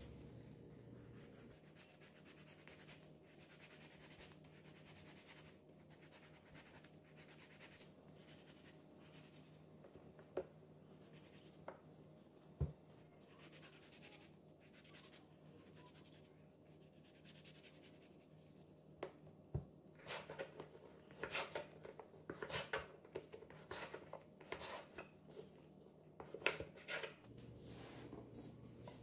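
Faint scraping and rubbing of a kitchen knife cutting the peel off a grapefruit. About two-thirds of the way through comes a quick run of knife strokes through the peel against a wooden cutting board.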